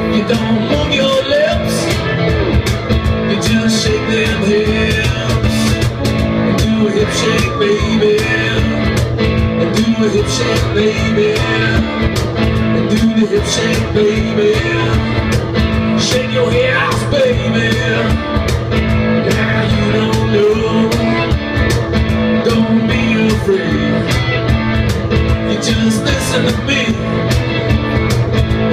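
Live blues-rock band playing: guitar over a steady bass and drum beat, with some singing.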